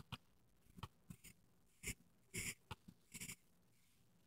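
Faint, short scratches of a pencil drawing lines on paper, several separate strokes.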